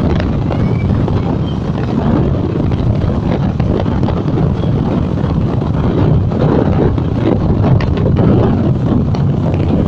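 Wind buffeting the microphone of a phone held out at the open window of a moving passenger train, a steady loud rush of noise over the train's running noise.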